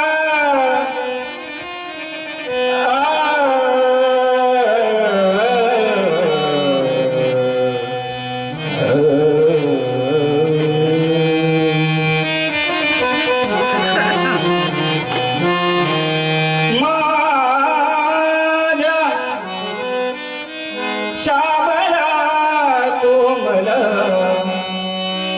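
Marathi devotional bhajan music: a singer's wordless, gliding melodic line over the held notes of a harmonium, leading into the bhajan's first sung words.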